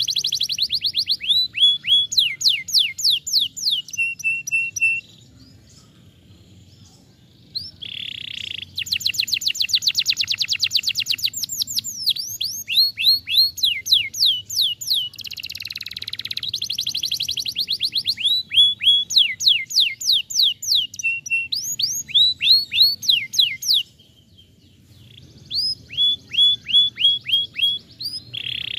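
Domestic canary singing: fast trills of rapidly falling whistled notes, broken by short buzzy phrases, with two brief pauses in the song.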